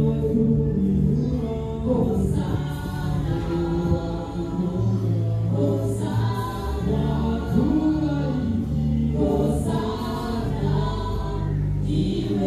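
Background music: a choir singing in a gospel style, with held chords and gliding vocal lines.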